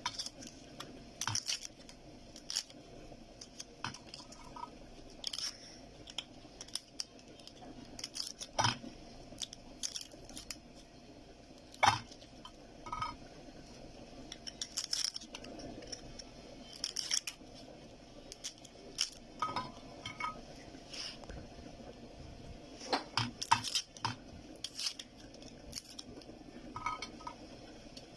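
Irregular small clicks, scrapes and clinks of a knife and a dish as garlic cloves are peeled by hand, a few of the clinks with a brief ring.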